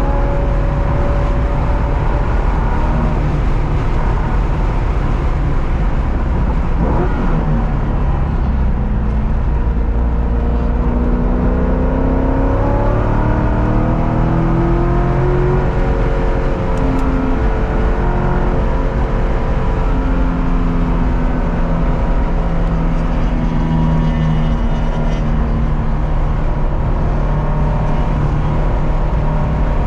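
Car engine at track pace, its pitch climbing under acceleration and dropping back several times as it shifts and slows, over steady low road and wind noise.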